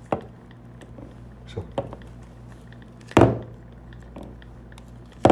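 A handful of knocks and thunks from a heavy corked bottle being handled and set against a countertop. The loudest comes about three seconds in, with a brief ring after it, over a faint steady low hum.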